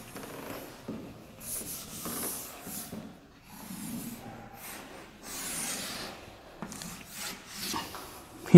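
Chalk rubbing across a blackboard in a series of long strokes as the lines of a table are ruled.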